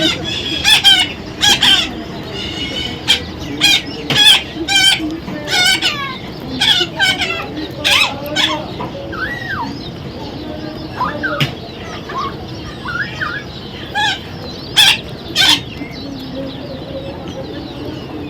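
Parrot calling with loud, repeated squawks, one close after another for the first half, then thinning out to a few shorter whistled calls.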